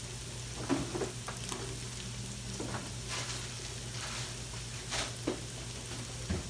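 Diced onions and green bell peppers, already soft and translucent, sizzling in oil in an enameled cast-iron Dutch oven, with scattered crackles and pops. A steady low hum runs underneath.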